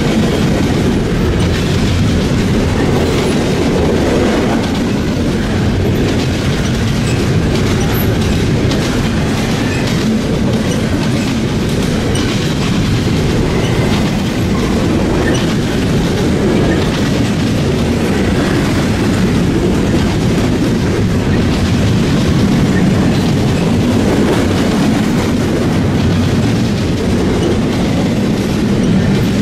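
Double-stack intermodal well cars rolling past: a steady rumble of steel wheels on rail that holds even throughout, strongest in the low range.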